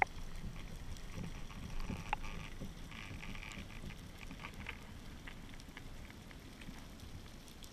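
Underwater ambience heard by a submerged camera: a low, irregular rumble of water movement with scattered faint clicks and crackles, and a sharp click at the start and another about two seconds in.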